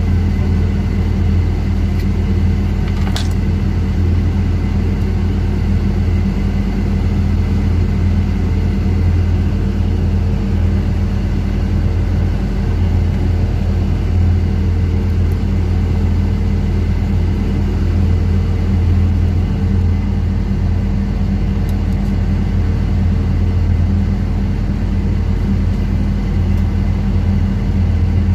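Steady low drone of a fishing vessel's running machinery, an even hum with no change in level. A single sharp click about three seconds in.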